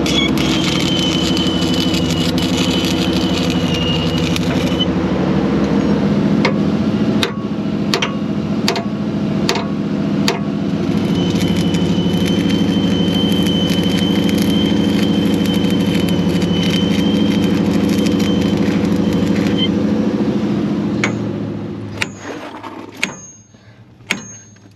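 An engine runs steadily, with a high steady whine over it in two stretches while the broken bracket under the vehicle is being cut. The engine drone dies away near the end, and a few sharp hammer taps follow.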